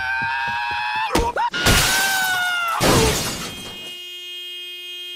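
Cartoon sound effects: people screaming in fright, sharp knocks, then a loud crash of breaking glass about three seconds in. A car horn then sounds steadily, as from a driver slumped on the wheel.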